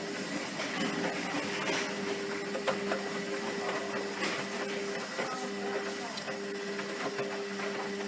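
Zanussi FlexiDose ZWG 6161 P washing machine running: a steady motor hum with light clicking and rattling over it.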